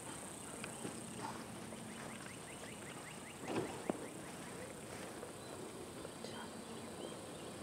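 Faint outdoor ambience with birds calling, including a quick run of short chirps about two seconds in. A steady high insect hum fades about a second in, and a brief louder sound comes about three and a half seconds in.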